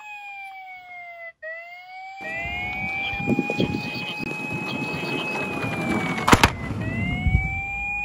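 Toy police car's electronic siren wailing, its pitch sliding slowly down and back up. From about two seconds in, the rumble of its wheels rolling down a wooden board runs under it, with one sharp knock just after six seconds.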